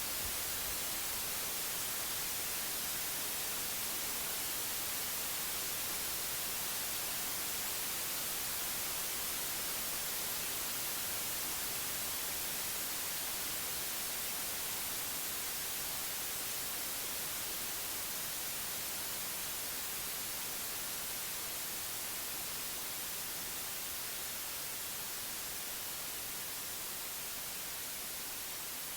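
Steady white noise, an even hiss with no rhythm or tones, getting slowly quieter over the last several seconds.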